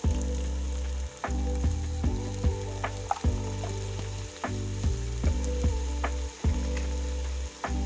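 Food frying and sizzling in a pan, with stirring knocks every half second or so, over background music with a steady bass line.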